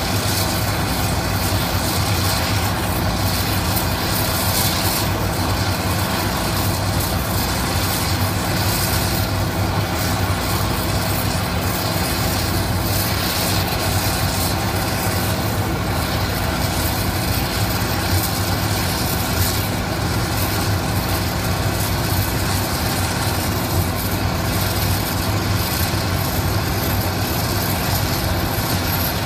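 1997 Eagle impact crusher plant running at work: a steady low engine drone, with the rattle and hiss of crushed rock pouring off the stacking conveyor onto the pile.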